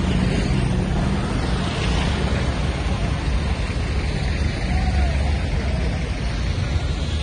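Street traffic ambience: a vehicle engine's low hum fades out in the first second or so, over a steady rush of noise.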